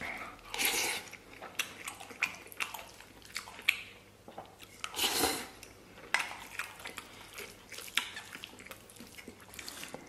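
Close-up eating sounds: chewing a mouthful of braised beef brisket and rice, with a wooden spoon clicking and scraping against a stainless steel bowl. Two louder noisy sounds come about half a second in and about five seconds in.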